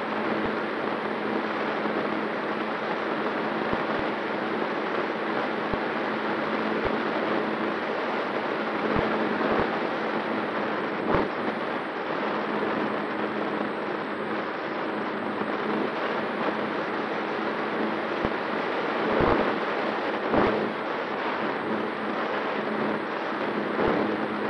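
Skua FPV wing in flight: its electric motor and propeller hum at a constant pitch under a steady rush of wind over the onboard camera, with a few brief wind thumps partway through.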